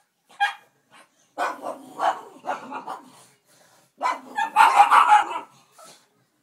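Pugs barking in quick bursts: a single bark, then a run of barks, then a louder flurry about four seconds in.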